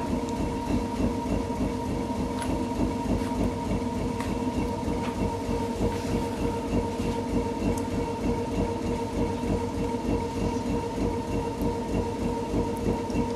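Potter's wheel spinning: a steady whine over a fast, even rhythmic rumble, with a few faint clicks.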